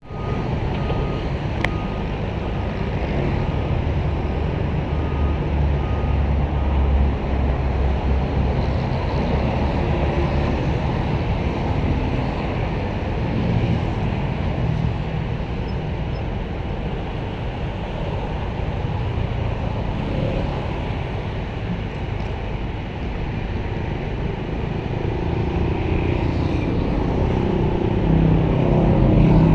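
Small backhoe excavator's diesel engine running steadily, growing louder and higher in pitch near the end as it works harder.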